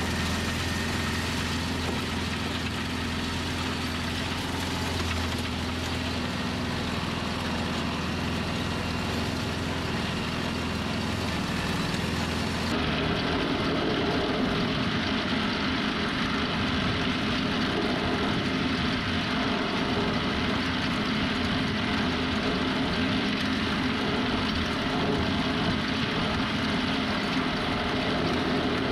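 Tractor engine running steadily while driving a forage wagon's pickup and loading rotor as it gathers cut grass for silage. About halfway through the sound changes abruptly to the wagon's pickup tines and rotor heard up close, slightly louder and busier.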